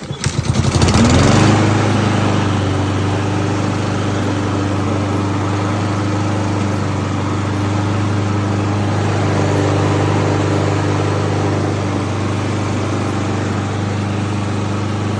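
Honda HRR216 push mower's single-cylinder gas engine starting up, picking up speed within about a second and a half, then running steadily at an even speed; it runs well.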